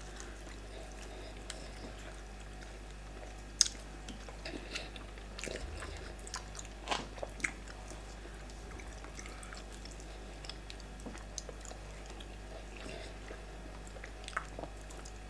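Quiet eating sounds of fufu and soup eaten by hand: scattered soft mouth smacks and chewing, with a sharper click a few seconds in and a small cluster of smacks soon after.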